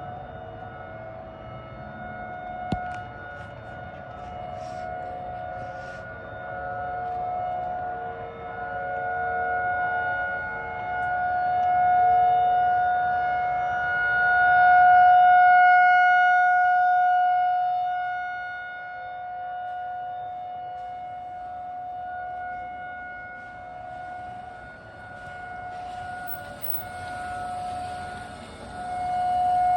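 Outdoor tornado warning sirens sounding a long, steady-pitched wail, the loudness swelling and fading every few seconds and peaking about halfway through.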